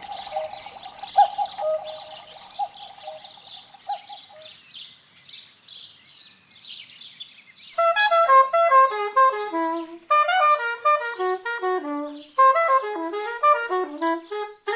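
Soundtrack of bird-like chirping for the first several seconds. From about eight seconds it gives way to a melody of short notes stepping down in pitch, played in three short phrases.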